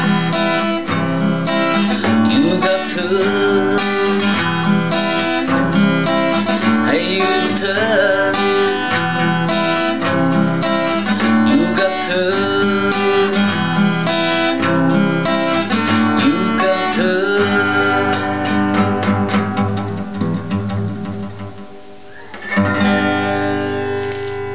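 Instrumental outro of a song led by guitars, dying away a little after twenty seconds in, then one last full chord that rings out near the end.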